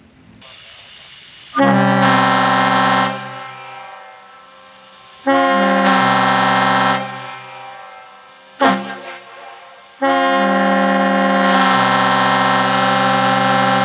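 Multi-chime locomotive air horn sounding a chord in the grade-crossing pattern: two long blasts, one short, then a final long one. Each blast starts abruptly and rings on with an echo after it stops.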